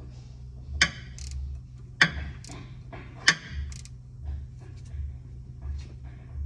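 Hand tools clanking against the underside of a pickup's engine and transmission: three sharp knocks about a second apart and a few fainter taps, over a low steady hum.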